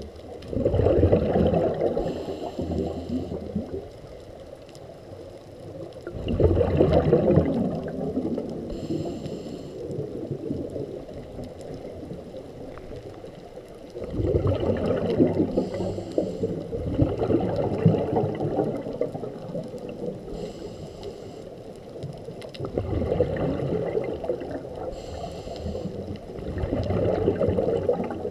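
Scuba diver breathing through a regulator underwater: loud bursts of exhaled bubbles every few seconds, with a fainter hiss between them.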